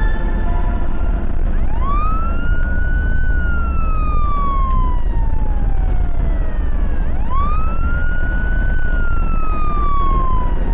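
Ambulance siren sounding a slow wail twice: each cycle rises quickly, then falls away slowly over several seconds. Under it runs a steady low rumble of engine and road noise.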